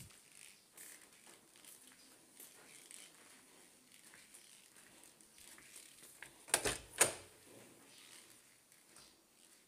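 A wooden interior door being handled: two sharp knocks about half a second apart, over faint rustling.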